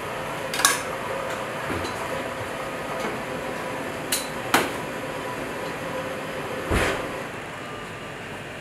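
Kitchen utensils clinking and knocking against a plate, small steel pans and a steel counter during plating: four short sharp clinks, two close together in the middle and a heavier knock near the end, over the steady hum of kitchen ventilation.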